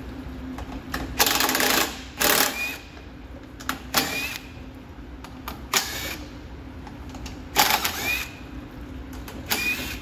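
Cordless impact driver hammering out the 10 mm panel bolts of a generator in several short bursts, one every second or two, the first and longest about a second in.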